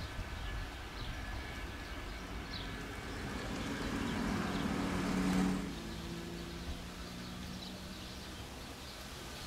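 Distant Boeing C-17 Globemaster's four turbofan engines running at low power as it taxis, a steady hum that swells about halfway through and falls back a second or so later. Faint bird chirps over the engine noise.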